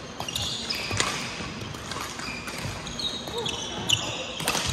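Badminton rally: sharp racket hits on the shuttlecock, one about a second in and another near the end, with court shoes squeaking on the floor in between.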